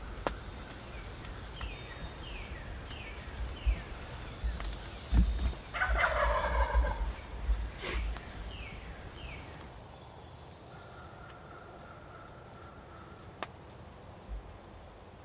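A wild turkey gobbler gobbles once from the roost, a loud rattling gobble of about a second and a half about six seconds in. Another bird's short falling notes repeat before and after it, and wind rumbles on the microphone for the first two-thirds.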